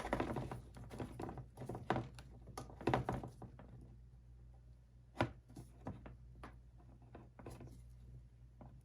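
Handling noises of small hard objects being fitted together on a tabletop: a quick run of light clicks and knocks, then a few scattered taps, with one sharper knock about five seconds in.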